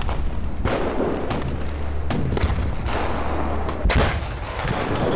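Artillery and gunfire on a military firing range: a series of heavy shots and booms, the clearest about a second in, two seconds in and just before four seconds, the last the loudest. A low steady rumble runs underneath until that last shot.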